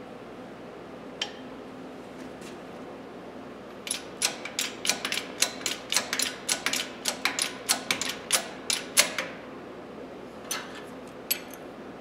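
Small hydraulic shop press being worked while it bends a pair of slip joint pliers straight between wooden blocks: a quick, irregular run of sharp clicks and ticks, about three or four a second for some five seconds, with a single click before it and two after. A faint steady hum lies underneath.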